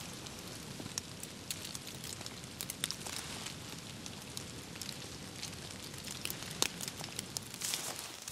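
Winter forest ambience: scattered, irregular light ticks and pattering of drops falling on the frosted forest floor and dry leaves over a steady soft hiss, becoming denser near the end.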